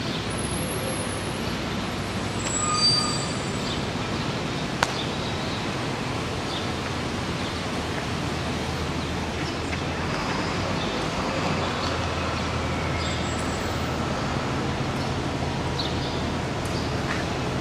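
Steady city street traffic noise, a low hum of passing and idling vehicles, with a single sharp click about five seconds in.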